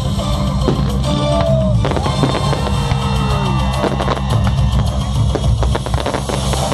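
Music with a drum beat, mixed with the repeated bangs and crackling of fireworks bursting.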